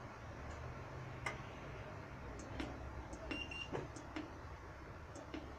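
Button presses clicking on a device's electronic control panel, several separate clicks, with one short electronic beep about three seconds in. A faint low hum lies underneath.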